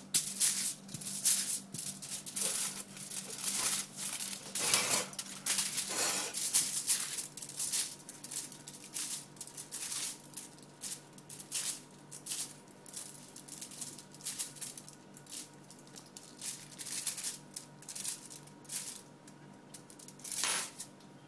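Aluminium foil crinkling and crackling under hands and a butter knife as butter is spread on it: irregular sharp crackles, dense in the first half and thinning out later, with one louder crackle near the end.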